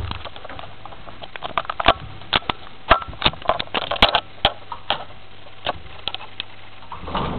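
Old Electro Lift Ltd traction lift car: a steady low hum with a run of irregular sharp clicks and knocks. Near the end a louder rattling rumble takes over.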